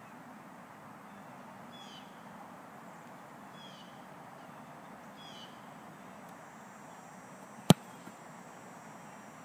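A kicker's foot striking a football off a kneeling holder's hold for a field-goal attempt: one sharp impact late in the clip. Earlier, three faint short chirps over a steady outdoor background.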